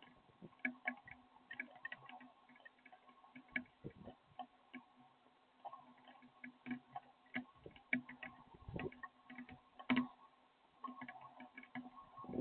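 Rain dripping: faint, irregularly spaced ticks and taps over a steady low hum.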